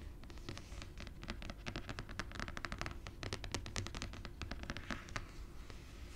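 Long fingernails tapping and scratching fast on the inside of a phone case: a dense, uneven run of sharp nail clicks mixed with scratching, stopping about five seconds in.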